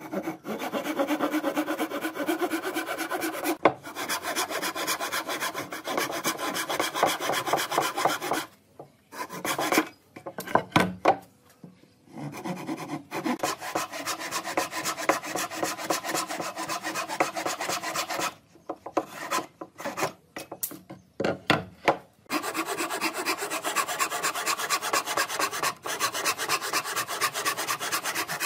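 Thin-bladed hand saw cutting across a wooden board in rapid back-and-forth strokes, in three long runs of sawing with short breaks between. The breaks hold a few isolated knocks.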